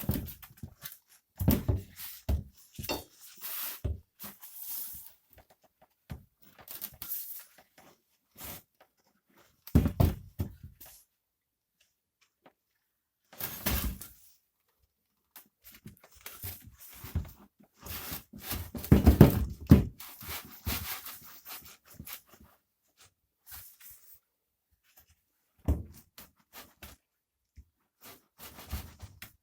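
Hands working a rubber inner tube into a motorcycle tyre on its rim: irregular rubbing, scuffing and knocks of tyre and wheel, with quiet gaps between and the busiest, loudest handling about two-thirds through.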